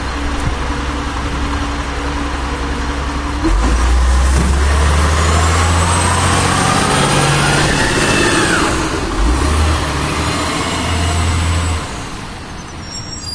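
1996 Volvo WX64 garbage truck's diesel engine idling, then revving up sharply about three and a half seconds in, its pitch rising and falling twice as it works through the gears, before it drops back and quietens near the end.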